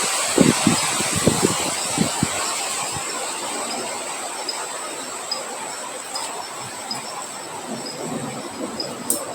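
Rain and wind hiss with a few low rumbles of wind in the first two seconds, slowly dying down. A steady high insect trill runs underneath, and from about four seconds in a faint chirp repeats roughly twice a second.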